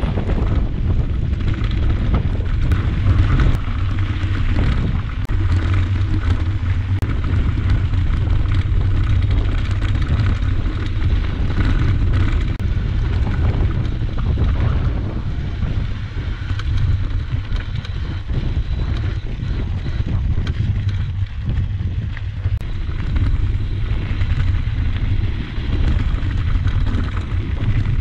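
Wind buffeting the microphone of a mountain bike's helmet or handlebar camera during a fast descent, a heavy steady rumble, with the tyres crunching and rattling over loose gravel and scattered small clicks.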